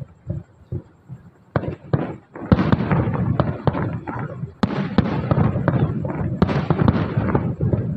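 Fireworks bursting: a few separate sharp bangs, then from about two and a half seconds in a dense run of rapid bangs and crackling.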